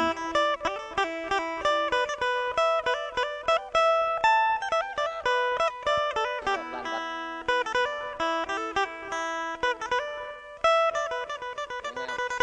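Instrumental music on a plucked string instrument: quick runs of picked notes over a steady drone note.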